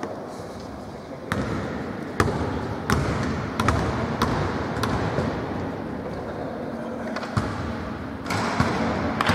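Basketball bouncing on a hard court floor: single bounces under a second apart, a pause, then a quicker run of bounces near the end, over the steady background noise of the hall.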